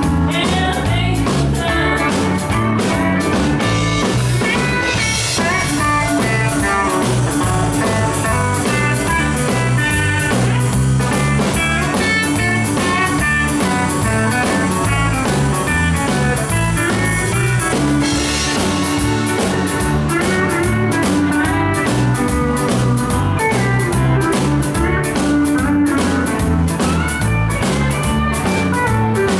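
Live country band playing: guitars over bass and drums with a steady beat, mostly an instrumental stretch between vocal lines.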